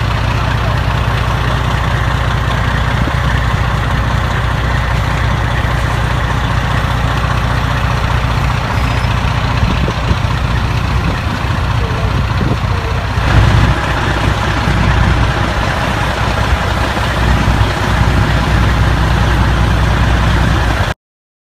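Fire truck's diesel engine idling steadily with a deep, even rumble.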